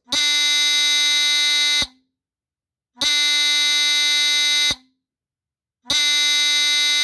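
Chloride Pyrotector 30-77ARF2 smoke detector's Star buzzer horn sounding its alarm in a low pulsing pattern: three long, loud buzzes of nearly two seconds each, about a second apart.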